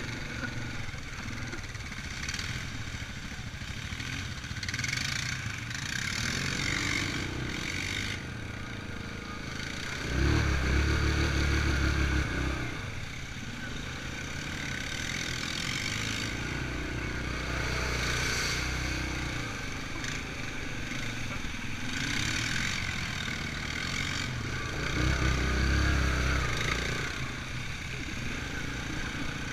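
ATV engine running steadily on the trail, with louder throttle surges about a third of the way in and again near the end.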